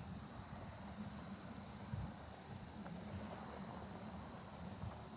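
Insects in summer weeds trilling steadily at a high pitch, with a faint pulsing chirp beneath, over a low rumble.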